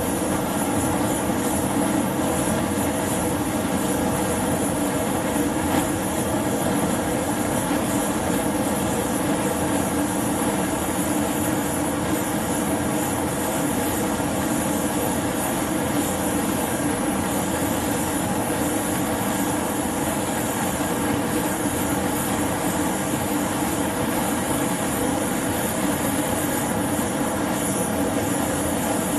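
LPG/propane torch burning steadily with a constant rushing roar while it heats the work for silver soldering.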